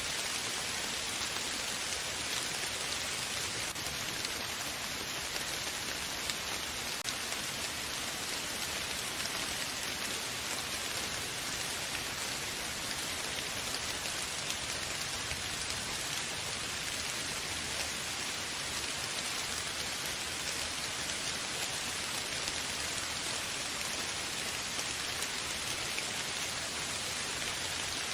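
Steady rain falling on a surface, an even hiss of many small drop patters that stays level throughout.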